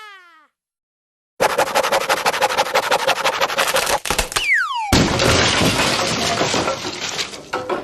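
Cartoon crash sound effect: a rapid rattling clatter, a quick falling whistle, then a long clattering crash. It opens with the tail of a descending whistle fading out, then a second or so of silence.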